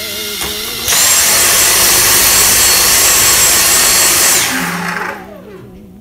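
Dyson cordless stick vacuum switched on about a second in, running with a loud high-pitched motor whine for about three and a half seconds, then switched off and spinning down, its whine falling away.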